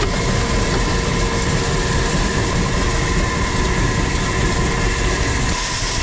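Grain bin bucket elevator and underfloor auger running together: a loud, steady mechanical rumble with a constant whine.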